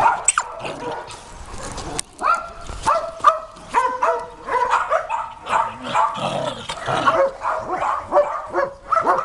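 Puppies whining and yipping in short, high calls, several a second, coming thick and fast from about two seconds in.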